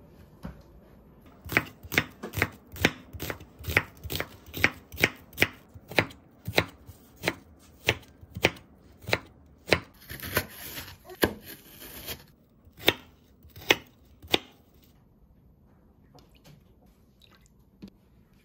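Chef's knife chopping vegetables on a wooden cutting board: a steady run of sharp strikes about two a second, stopping about fourteen seconds in.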